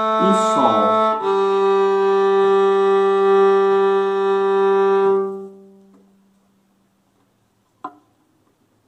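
Violin bowed in slow, sustained notes. About a second in it changes to one long held note that fades out about five and a half seconds in, followed by silence and a faint tap near the end.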